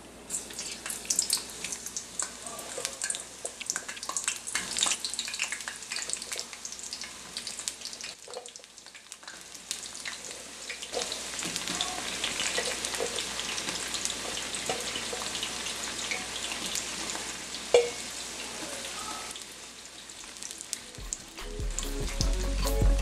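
Eggplant pieces going into hot oil in a wok and deep-frying: sharp spitting and crackling at first, settling into a steady sizzle. Music fades in near the end.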